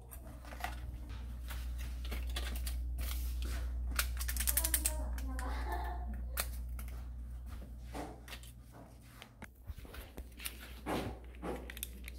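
Close handling noise: a run of dry clicks and crinkles, densest about four to five seconds in, then sparser, over a steady low hum.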